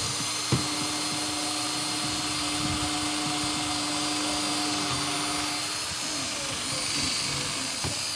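A sharp click about half a second in, then a cordless drill running steadily at one speed for about five seconds, drilling into the plastic rub-rail strip screwed along a fibreglass boat hull. It stops about six seconds in, leaving fainter handling noise.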